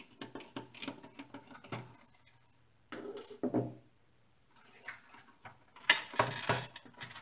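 Screwdriver turning out the screws that hold a power transformer in a plastic radio chassis: a run of small rapid clicks. Then knocks, scrapes and rattles of the hard plastic chassis being handled, loudest about six seconds in.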